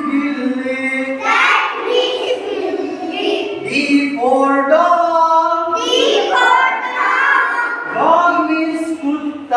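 A group of young children singing an alphabet action song together in unison.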